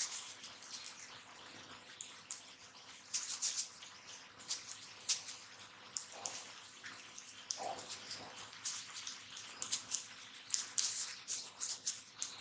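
Close-miked crackling and scratching from a barber's hands working on the head, in irregular quick clusters of sharp crackles.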